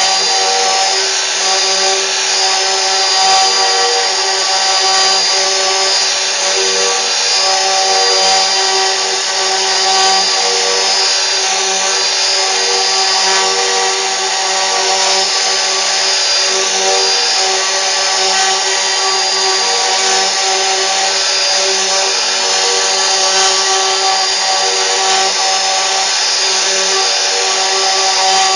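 CNC machine running steadily: a constant whine made of several steady tones with a hiss over it, unchanged throughout.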